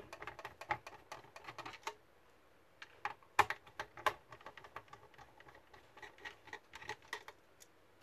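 Quick, irregular light clicks and taps of hands working inside an opened plastic Bluetooth speaker housing, with a pause of about a second and one louder click about three and a half seconds in.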